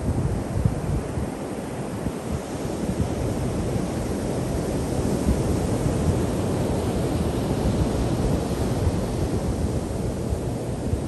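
Ocean surf breaking and washing up the beach, a steady rush that swells through the middle and eases near the end, with wind rumbling on the microphone.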